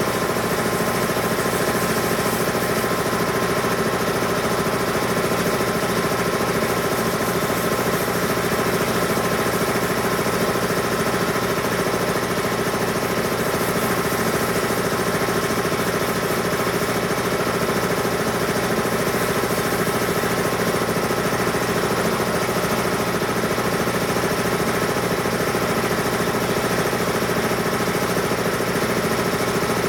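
A machine running steadily with a fast, even vibrating rattle and a drone of several fixed tones. It does not change.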